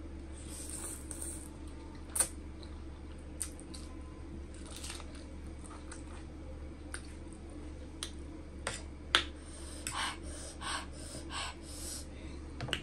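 Close-up eating sounds of spicy instant noodles: a slurp of noodles off a fork near the start, then wet chewing and mouth noises with scattered sharp clicks. A run of short noisy chewing sounds comes near the end.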